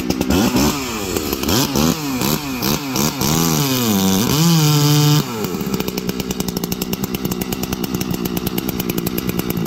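Two-stroke chainsaw, a 381 build, revved up and down several times and then held at high revs while cutting into a log, its pitch dipping in the cut, before dropping back to a steady idle about five seconds in. It is a test of throttle response while tuning the carburetor's low jet.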